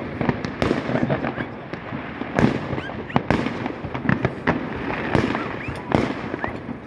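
Many fireworks going off at once: a constant crackle of overlapping bangs, with several louder bangs standing out and a few short rising whistles among them.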